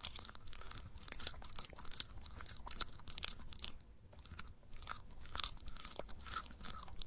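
A puppy chewing something crunchy: a quick, irregular run of crunches.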